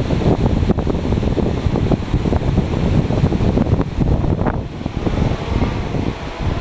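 Wind buffeting the microphone: a loud, rough rumble that rises and falls in gusts.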